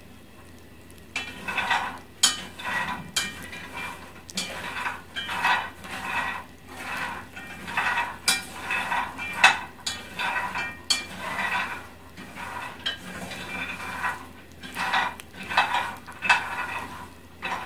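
Peanuts being stirred as they dry-roast in a pan: repeated scraping and rattling strokes with sharp clicks, about one or two a second, starting about a second in.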